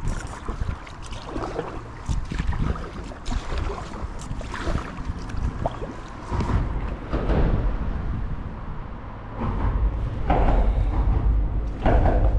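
Kayak paddle blades dipping and pulling through the water, a splash and trickle of drips every two or three seconds, over a low rumble that grows louder about three quarters of the way through.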